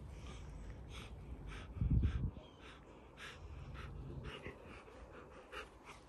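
Alaskan malamute huffing and breathing as it play-mouths a fleece sleeve, with short irregular rustles of fur and fabric. A dull low thump about two seconds in is the loudest sound.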